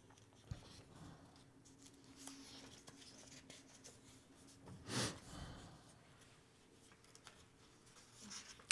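Quiet room tone with faint scattered small noises, a brief click about half a second in, and one short, louder noise about five seconds in.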